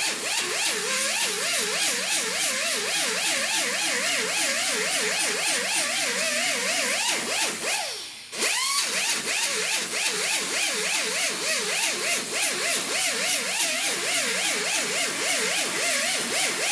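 Power cutting tool running through rust-damaged auto-body sheet metal, its pitch wavering constantly as the load changes. About halfway through it stops for a moment, then spins back up with a quick rise in pitch and carries on cutting.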